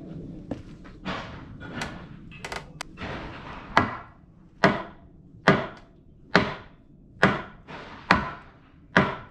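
Hammer blows on timber in traditional Japanese joinery work: a few scattered lighter knocks, then from about the middle a steady run of seven sharp strikes a little over one a second.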